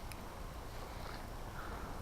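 Steady, even rush of a flowing mountain creek, with a faint tick just after the start.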